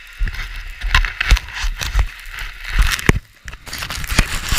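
Skis scraping and chattering over snow and ice, with irregular clicks and scrapes, and wind buffeting the microphone in low rumbles; the sound drops away briefly just after the middle.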